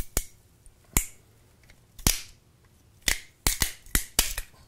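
Plastic lens housing of a Lytro camera cracking and snapping as it is squeezed and pried apart with pliers. There are a few single sharp cracks about a second apart, then a quick run of them near the end.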